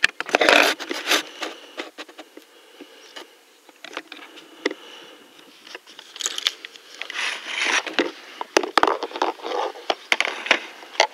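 Close, irregular rustling and scraping with sharp clicks and knocks, loudest near the start, around the middle and near the end: handling and movement noise near the microphone.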